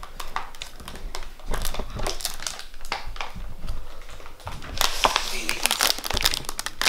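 Plastic wrapper of an Oreo cookie package crinkling as it is handled, a dense run of crackles about five seconds in.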